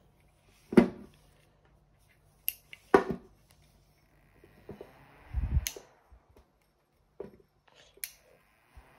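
About half a dozen small clicks and knocks from hands handling a USB fan and its power bank, plugging the USB cable into the other port and pressing the power button, with a low bump about halfway.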